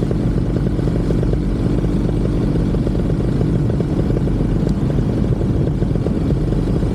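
Paramotor engine running steadily in flight, a rapid low buzz at constant power during the landing approach.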